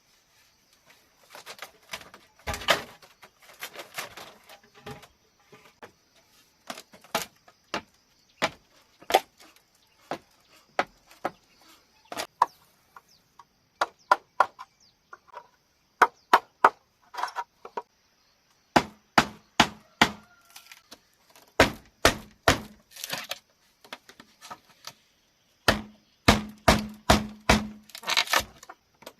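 Repeated sharp knocks and chops on bamboo, coming in uneven runs; in the later runs the strikes ring with a hollow low tone.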